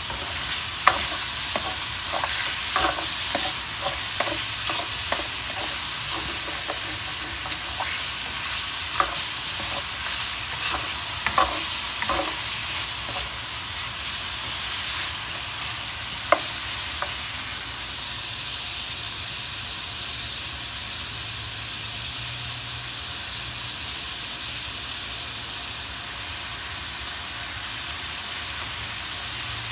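Food sizzling in a hot frying pan while being stirred, a utensil knocking against the pan now and then through the first half; after that the sizzling goes on evenly.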